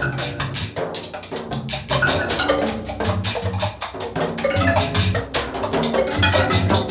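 Music with busy percussion: quick, sharp drum or wood-block hits over short, repeated bass notes.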